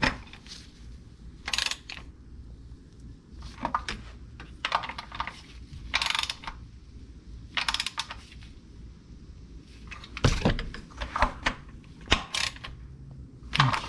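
Hand ratchet clicking in short bursts every second or two as the starter mounting bolts are snugged up.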